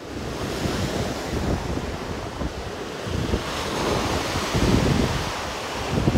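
Ocean surf breaking on the rocky shore below, with wind buffeting the microphone in gusts.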